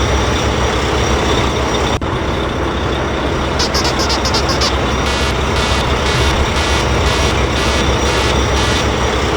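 Steady heavy truck engine rumble, with a sudden break about two seconds in. From about three and a half seconds a rapid run of short high-pitched pulses sounds over it.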